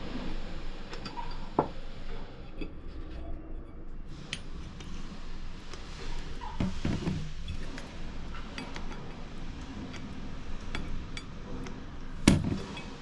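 Small metal engine parts being handled and set down on a workbench: scattered light clinks, with a few heavier knocks, the loudest near the end.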